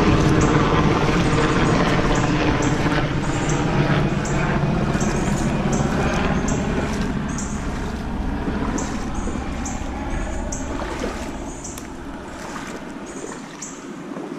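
An aircraft passing overhead, a steady low drone that slowly fades away.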